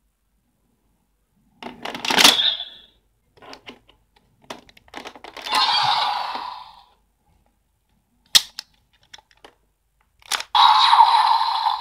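Kamen Rider Saber DX transformation belt toy with the DX Primitive Dragon Wonder Ride Book playing its electronic transformation-release sound effects: a short burst about two seconds in, a longer one around six seconds, and another from about ten and a half seconds on. Sharp plastic clicks and ticks of the sword and book being handled fall between them.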